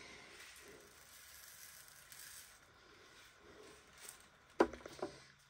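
Small diamond-painting drills poured from a plastic bag into a plastic drill tray: a faint trickle and rustle, with two sharper clicks near the end.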